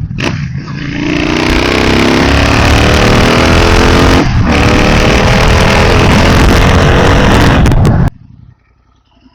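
Royal Enfield Continental GT 650 parallel-twin exhaust through a Red Rooster aftermarket silencer, revving hard and rising in pitch, with a brief break about four seconds in. It cuts off suddenly about eight seconds in.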